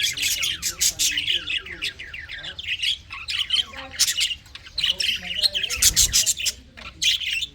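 Budgerigars chattering and squawking in a busy, unbroken run of rapid chirps, with a brief low bump about six seconds in.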